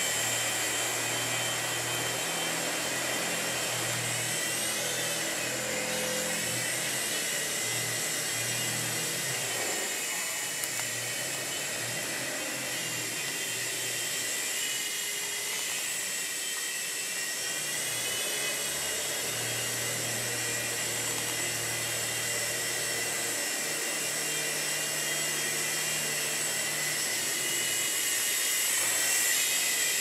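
Syma S103 toy RC helicopter's small electric motors and spinning rotors, whining steadily in flight. The pitch rises and falls a little now and then.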